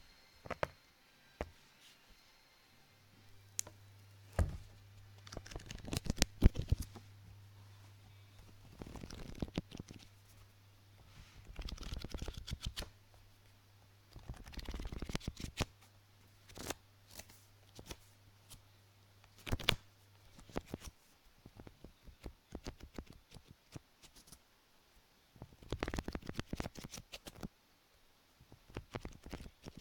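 Close-miked ASMR handling of small objects: scattered sharp clicks and taps with several short rustling, riffling bursts. A faint steady low hum sits under the first two-thirds and then stops.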